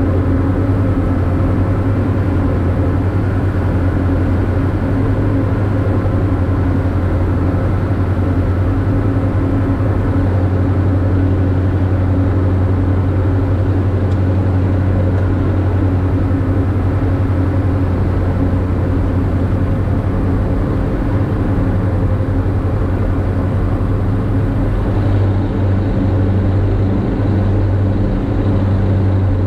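Steady drone of a Diamond DA42's twin engines and propellers inside the cockpit in cruise-descent, with a strong low hum under it.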